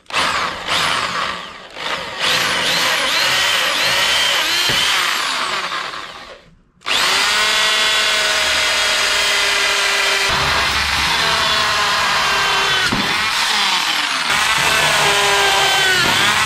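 Electric drill boring out a bolt hole in the steel tube of an ATV frame with a 6 mm bit. It runs in a few short starts, then two long spells with a brief stop about six and a half seconds in, its motor whine rising each time it spins up.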